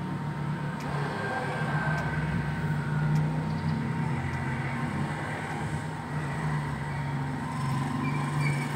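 Steady low machine hum with a thin, even whine above it, and a few faint light clicks of small metal parts being handled.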